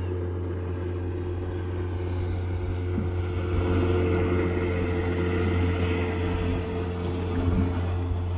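Outboard boat motor running at a steady speed: a constant low drone with steady tones above it.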